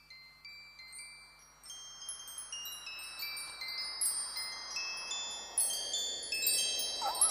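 Tinkling chime notes that ring on and overlap, building up thicker and louder, as the soft opening of a backing music track.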